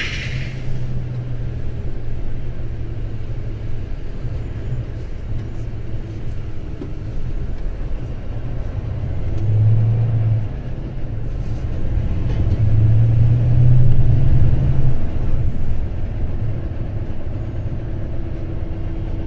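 Heavy truck's diesel engine running under way, a low drone that swells louder about nine seconds in and again for a couple of seconds around thirteen to fifteen seconds.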